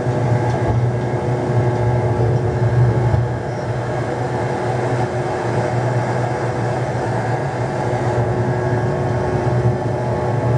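McDonnell Douglas DC-10 trijet during takeoff: a steady low rumble of engines and airflow, with a few faint steady tones over it.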